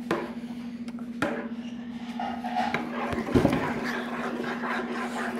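Spoon stirring a thick mixture in a pot, knocking against the pot near the start and about a second in, then louder once about three and a half seconds in. A steady low hum runs underneath.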